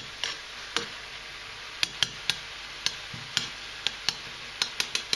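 Chanterelles and onions sizzling in butter in a hot pan, with a steady hiss. A metal spoon clicks against the pan at irregular intervals, about twice a second, as they are stirred gently.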